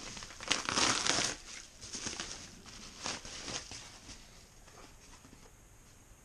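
Padded paper mailer crinkling and rustling as it is pulled open, loudest about a second in. A few shorter rustles follow as a small cardboard box is slid out, and the sound dies away after about four seconds.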